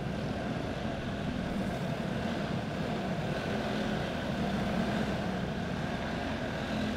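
Several racing go-karts' single-cylinder clone engines running slowly and steadily as a group, a continuous drone, heard inside an arena hall.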